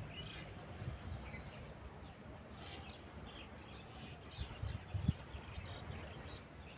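Faint bird chirps scattered over a low outdoor rumble, with two brief low bumps about two-thirds of the way through.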